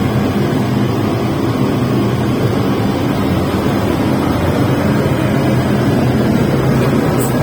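Industrial burner running with a steady, loud rushing noise.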